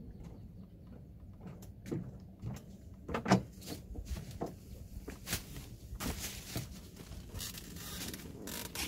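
Scattered light knocks and clicks, with one louder knock about three seconds in, then a steadier rustling noise from about six seconds on.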